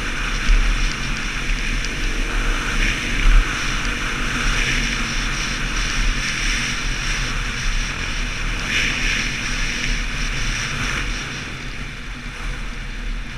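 450 cc single-cylinder dirt bike engine running under way on a gravel track, heavily overlaid by wind buffeting on the helmet-mounted camera's microphone.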